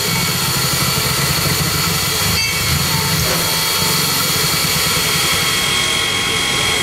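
Queensland Rail steam locomotive C16 106 standing in steam, giving a steady hiss with several steady high-pitched tones over an uneven low pulsing.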